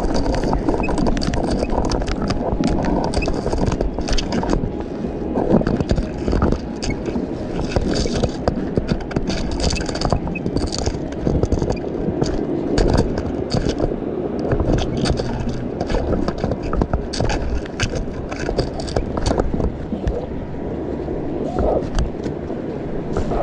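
Fishing magnet on a rope dragged along the bottom, heard through an underwater camera: a steady scraping noise with frequent small clicks and knocks.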